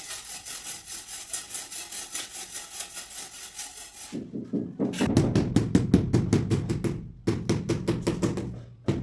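Hand tool working on floor tile and mortar: quick, even scraping strokes at about five a second, then from about four seconds in, heavier and faster knocking strokes with a short break near seven seconds.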